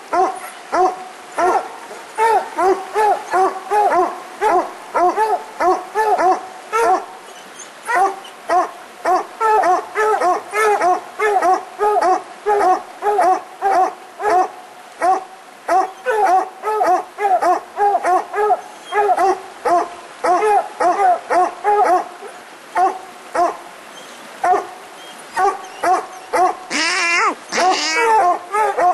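Two coonhounds barking treed at the base of a tree, a steady run of short chop barks about two or three a second, the locate signal that they have a raccoon up the tree. Near the end come a couple of louder, higher calls.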